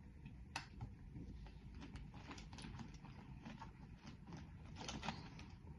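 Faint eating sounds: scattered small clicks and crackles of chewing and of food being handled, a little busier near the end.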